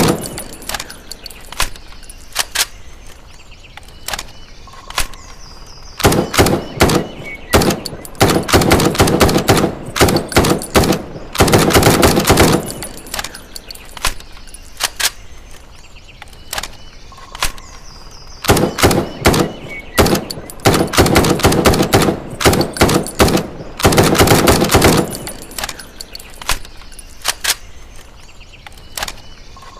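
M656 rifle sound effect: long runs of rapid automatic fire, with scattered single shots between them. The sequence repeats about every twelve seconds.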